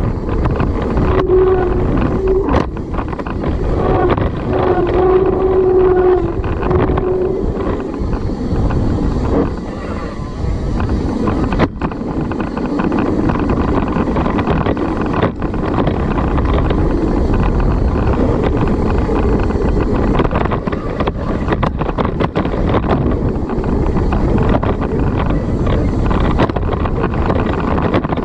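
Wind buffeting the microphone during a fast mountain bike descent, with steady tyre and trail noise and scattered sharp clicks and knocks from the bike rattling over bumps.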